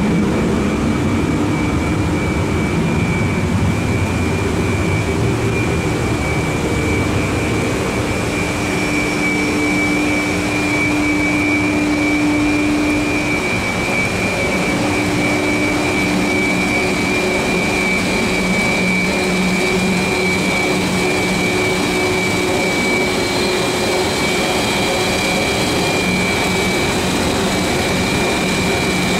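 Industrial rotary drum dryer for a wood-pellet line running: a loud, steady machine noise with a constant high whine and a lower hum that swells and briefly drops out near the middle.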